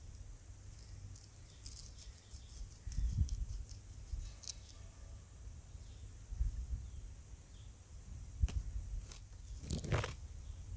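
Knife slicing raw beef on a wooden cutting board: soft, wet cutting sounds, with a couple of sharper knocks of blade and meat on the board near the end.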